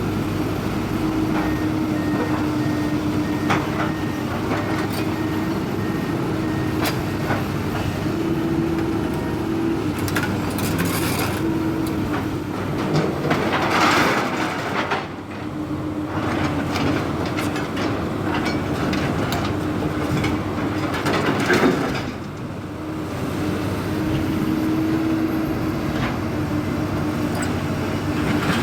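Hyundai crawler excavator with a grapple attachment at work: engine and hydraulics running with a steady hum, scattered knocks and clanks, and two louder surges, one about halfway through and one about three-quarters of the way.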